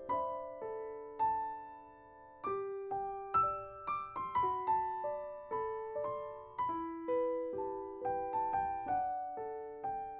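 Slow, gentle piano music: single struck notes, one or two a second, each ringing out and fading.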